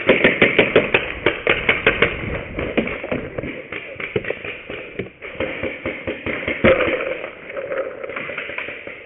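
Paintball markers firing: a rapid string of sharp pops, about five a second, for the first two seconds, then slower scattered shots with one loud pop near the end.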